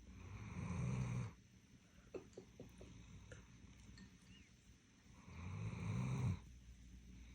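Doberman snoring in deep sleep: two snores about five seconds apart, each swelling for about a second and stopping abruptly, with faint clicks in the quiet between them.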